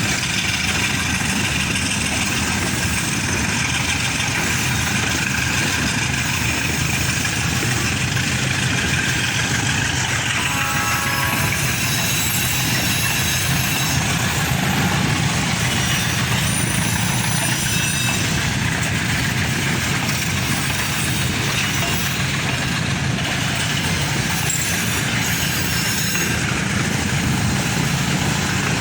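Freight train running past, a diesel locomotive's engine giving a steady low rumble under the even noise of the moving train.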